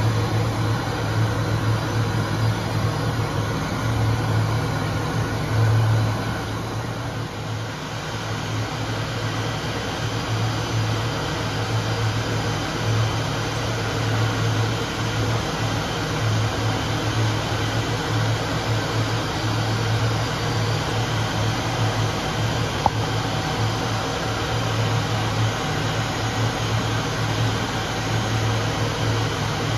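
A steady mechanical drone with a strong low hum that pulses unevenly, and one sharp click about two-thirds of the way through.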